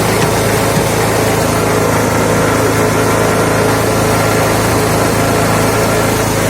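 Lifan 6.5 hp single-cylinder four-stroke petrol engine running at a steady speed, driving a homemade screw-cone log splitter.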